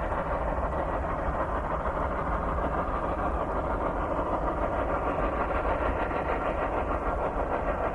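A T class steam locomotive and a 400 class Garratt double-heading a loaded ore train up a steep 1 in 60 grade, working hard with their exhaust beats blended into a steady, dense chuffing.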